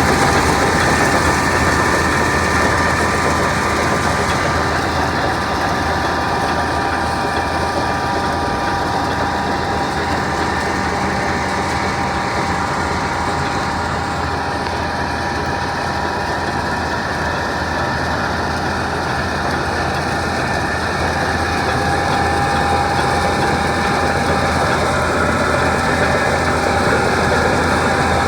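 Combine harvester running steadily while harvesting soybeans: a constant engine hum with a steady whine of machinery over it.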